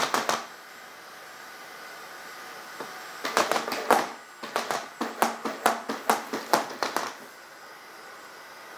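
Unitree Go2 robot dog's feet tapping and stepping on a hardwood floor as it dances: a brief flurry of taps at the start, then a run of quick footfalls, several a second, from about three seconds in to about seven.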